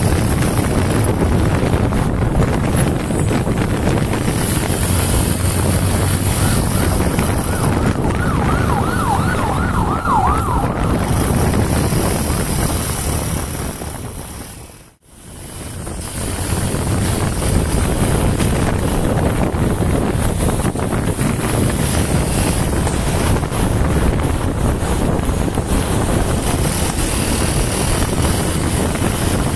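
Honda TMX 125's single-cylinder four-stroke engine running steadily at cruising speed, with wind rushing over the microphone. A siren yelps briefly about eight seconds in. Halfway through, the sound fades out and back in.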